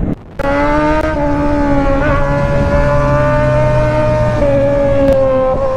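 Motorcycle engine running at a steady cruising speed, its note holding an even pitch, with a brief drop just after the start.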